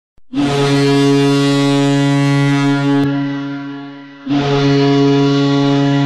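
Ice hockey arena goal horn sounding twice. A long, loud, low blast of about three seconds fades out, then a second blast starts about four seconds in and is still sounding.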